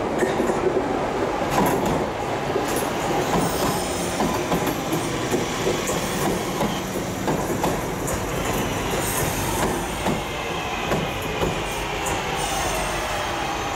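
Class 323 electric multiple unit running in beside the platform and slowing, with a steady rumble of wheels on rail and clacking over rail joints. A faint whine comes in from about eight seconds in.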